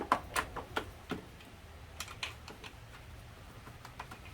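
Irregular sharp metallic clicks and taps from tools and bike brake parts being handled: a quick run of clicks in the first second and a few more about two seconds in.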